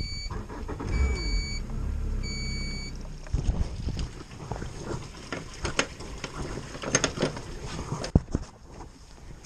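Boat ignition switched on: the helm beeps steadily three times while the outboard engine starts with a low rumble. After about three seconds come scattered knocks and clicks as the dock line is handled and dropped on the fibreglass bow deck.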